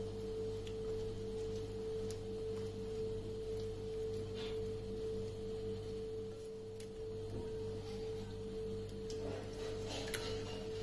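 A steady humming tone at one pitch, with weaker lower hum beneath it, under faint wet squishing from a hand rubbing thick spice paste onto fish pieces, a little louder near the end.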